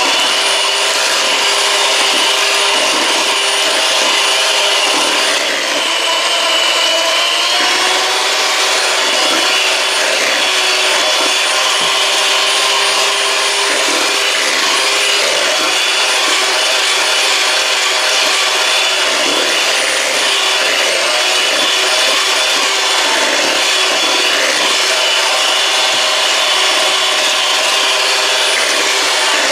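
Electric hand mixer running steadily and loudly, its beaters whipping red velvet cake batter in a stainless steel bowl. Its pitch rises slightly after a brief dip about five seconds in.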